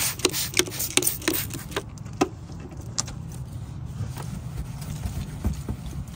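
Trigger spray bottle of quick detailer squeezed rapidly, short spray hisses about four a second. The spraying stops about two seconds in, with one more lone spray a little later, over a low steady background noise.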